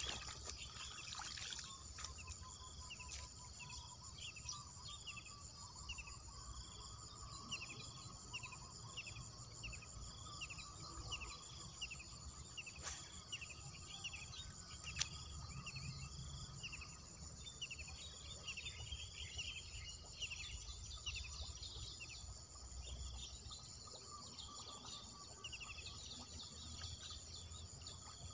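Outdoor grassland ambience: a steady high insect drone with a run of short chirping calls repeated about one and a half times a second, over a low rumble of wind on the microphone. A couple of sharp clicks stand out about halfway through.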